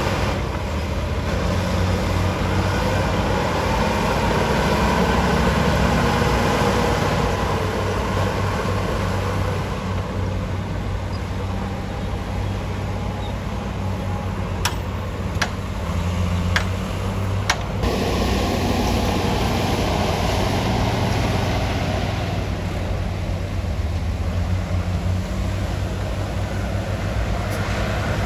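Heavy diesel engine of a bulldozer working, its running swelling and easing with the load, with a few sharp clicks or knocks about halfway through.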